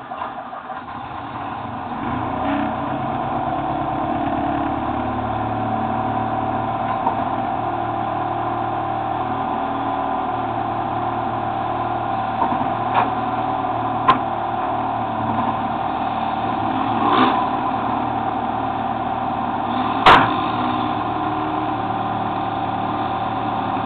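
Car engine idling steadily, its sound building up over the first couple of seconds and then holding even. A few short sharp knocks come through over it, the loudest about twenty seconds in.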